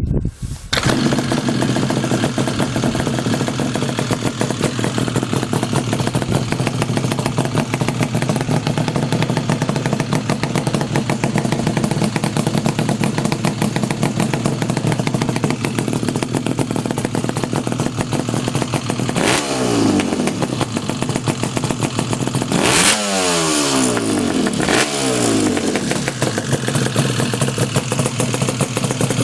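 Yamaha RD350LC two-stroke parallel twin running steadily through a pair of old Micron expansion-chamber exhausts. The throttle is blipped three times in the last third, the revs rising sharply and dropping back each time.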